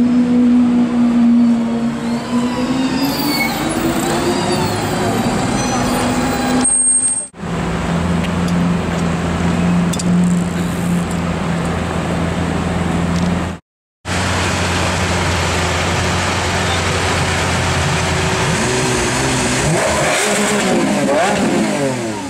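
Lamborghini Aventador's V12 engine running: its pitch rises a few seconds in, it holds a steady low note through the middle, and it revs up and down near the end.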